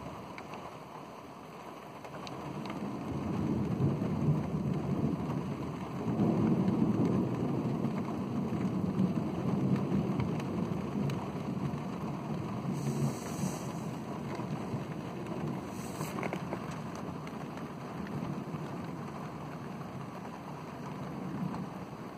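Rolling thunder over steady heavy rain: the rumble builds about two seconds in, is loudest a few seconds later, then slowly dies away under the rain.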